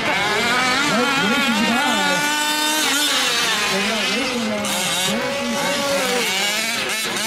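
Several 1/5-scale RC off-road race trucks' small gas engines revving up and down together, their pitches rising and falling across each other.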